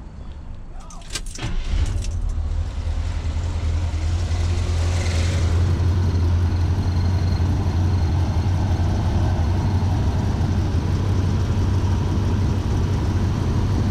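1977 Chevrolet C10's V8 engine: a few clicks, then it fires up about two seconds in and settles into a steady idle. It is running smoothly on all eight cylinders, its misfire cured by new spark plugs.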